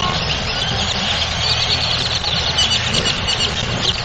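A flock of small birds chirping and chattering together in a dense, continuous chorus of many short, high calls, over a steady low rumble.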